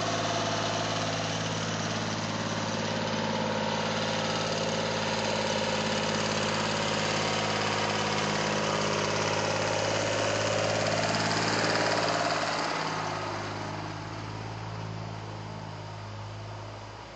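Rebuilt Yanmar 336D tractor diesel engine running steadily, getting quieter from about two-thirds of the way through.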